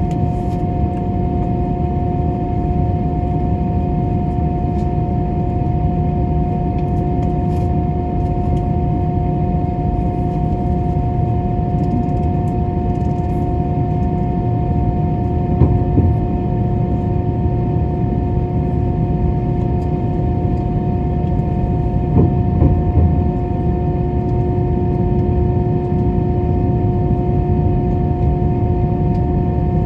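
Inside an Airbus airliner's cabin, the jet engines run at a steady low power: a constant low rumble with a steady hum of several fixed tones. Two brief thumps come through, a little past halfway and about three-quarters through.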